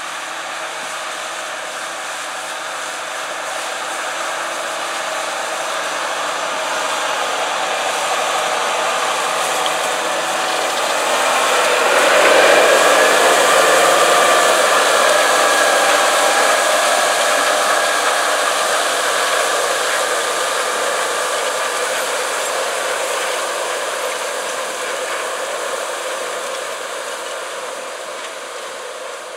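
Case IH Steiger 370 HD articulated four-wheel-drive tractor pulling an Ecolo-Tiger 870 disk ripper through corn stalks: a steady diesel engine under tillage load mixed with the rush of discs and shanks in the soil. It grows louder, is loudest about twelve seconds in as the rig passes close, then fades as it moves away.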